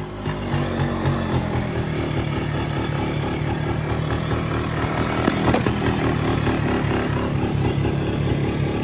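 Four-wheeler (ATV) engine running at a fast idle, a steady low putter. Its idle screw has been turned up so it won't stall when stopped to spray.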